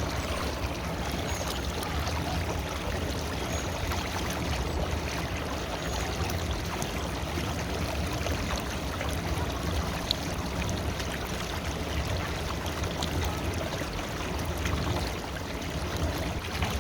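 River water flowing in a steady rush, with one brief tick about ten seconds in.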